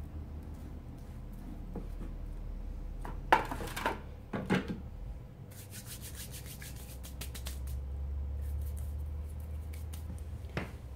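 Handling noises from a comic-covered picture frame being rubbed and knocked against a wooden table, with a few louder knocks a little over three seconds in. A run of light, rapid crackling follows, and another knock comes near the end.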